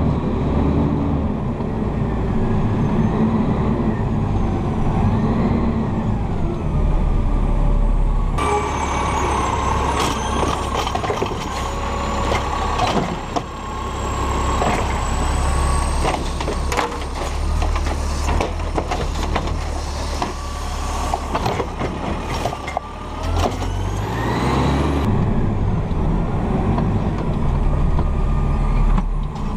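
Automated side-load garbage truck: the engine runs and revs, and through the middle the hydraulic arm lifts and dumps a wheeled trash cart with a steady whine, clanks and rattles.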